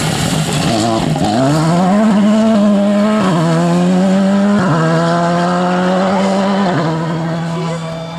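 Volkswagen Polo rally car's engine under hard acceleration. Its pitch climbs steeply about a second in, then dips briefly with an upshift about three, four and a half and seven seconds in. It fades as the car pulls away.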